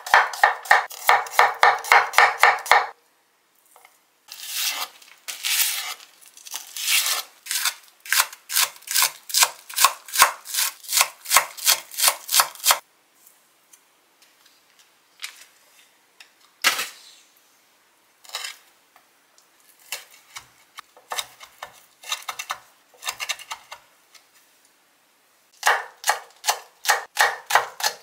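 Kitchen knife chopping on a wooden cutting board, slicing garlic and then chili peppers: quick, even strokes about five a second in runs of several seconds. A long pause in the middle holds only a few scattered knocks, one of them louder, before a fast run starts again near the end.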